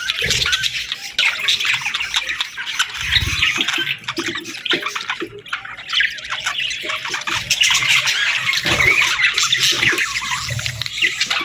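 Budgerigars chattering and chirping continuously in a dense overlapping warble, with a few soft low thumps, the loudest about three seconds in.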